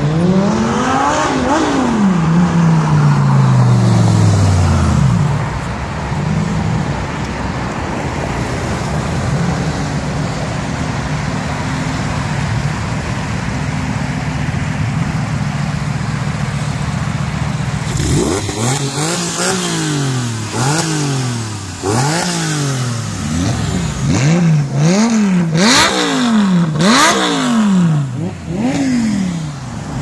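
Sports car engines at close range: one car accelerates past, its engine pitch climbing and then falling away. After that an engine drones steadily. From about two-thirds of the way in, an engine is revved in about eight quick blips, each rising sharply and dropping back.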